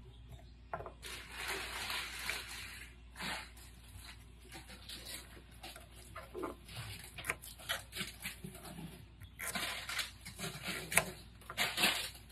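A kitchen knife cutting ginger on a plastic cutting board: irregular knocks and scrapes of the blade against the board.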